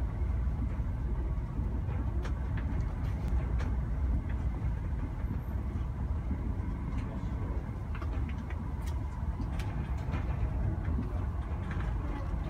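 Steady low running rumble inside the cab-front lounge of a Kintetsu 50000 series Shimakaze electric limited express travelling along the line, with scattered light clicks throughout.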